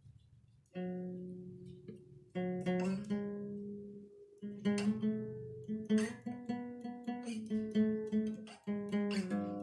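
Acoustic guitar played freestyle: a chord rings out just under a second in, more chords follow, and from about halfway the playing turns busier, with quick strums and picked notes.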